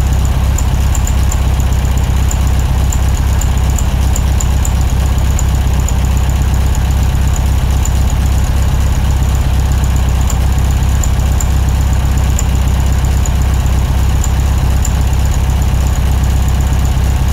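Air-cooled Volkswagen bus engine running steadily and loud, close to the microphone.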